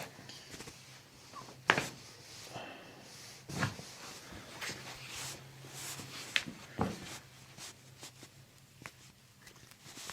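Joints popping as a chiropractor manipulates the toes and ankle: several sharp cracks, the loudest about two seconds in, with soft rustling and a low steady hum between them.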